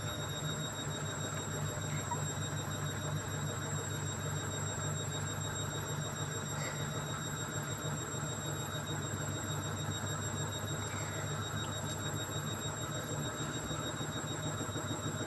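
Candy washing machine spinning at full speed: a steady high motor whine over a low drum rumble and vibration. The owner reports the machine vibrating and knocking on the spin.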